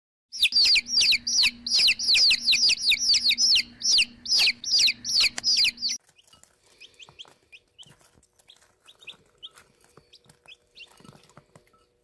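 Baby chicks peeping: loud, rapid peeps that fall in pitch, about four a second. About halfway through it cuts to fainter, scattered peeping.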